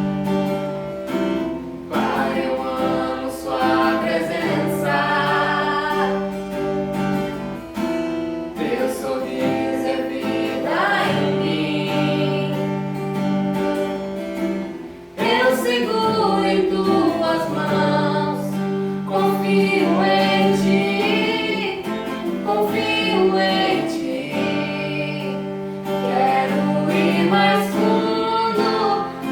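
Worship song: a voice singing a melody over guitar accompaniment, with a short dip about halfway through before it picks up again.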